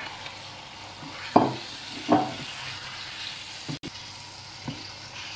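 Raw chicken pieces sizzling in hot oil and spice masala in a pan, stirred with a wooden spoon, with two brief louder strokes about a second and a half and two seconds in.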